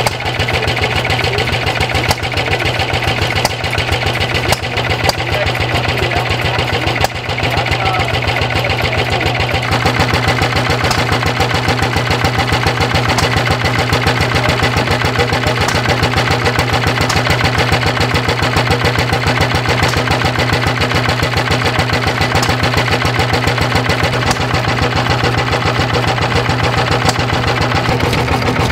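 Single-cylinder stationary engine running steadily with even exhaust beats, driving a grindstone through a flat belt.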